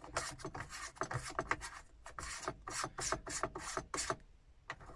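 Hard plastic of a phone-cradle mount being twisted by hand against its dash fitting: a quick run of rasping scrapes and clicks, a few a second, that stops a little over four seconds in, with one more click shortly after.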